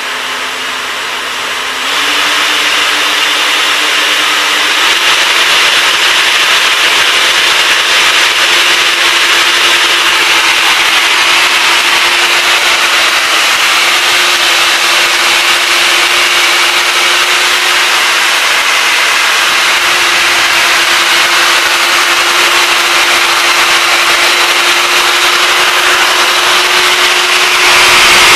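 Two 70 mm 12-blade electric ducted fans on a model Boeing 767 freighter, run up on the bench: a steady whine over rushing air. The whine steps up in pitch and loudness about two seconds in and again a few seconds later, then holds steady, swelling louder near the end.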